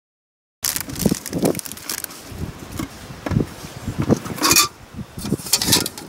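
Aluminium pots and lid of a Swiss army META-50 storm cooker set clinking and scraping as they are handled and taken apart, with several sharp metallic clinks in the second half. Wind buffets the microphone throughout once the sound cuts in about half a second in.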